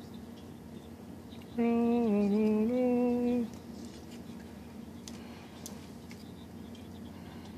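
A man humming a short phrase for about two seconds; the pitch dips partway through and comes back up.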